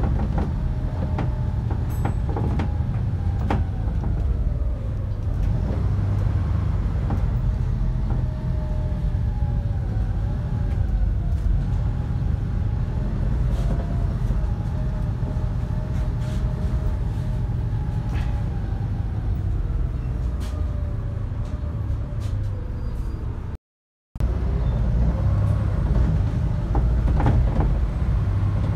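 Volvo B7RLE bus under way, heard from the rear of the saloon: the six-cylinder diesel runs with a deep rumble and a whine that rises and falls in pitch with road speed, and the interior gives light rattles and clicks. The sound cuts out for about half a second near the end.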